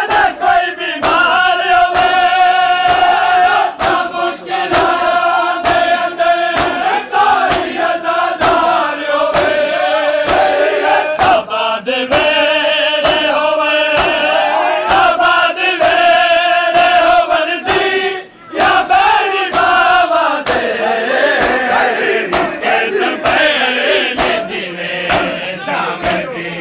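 A crowd of men chanting a noha in unison while beating their chests with open hands, the slaps landing in a steady rhythm under the chant. The sound drops out briefly about 18 seconds in.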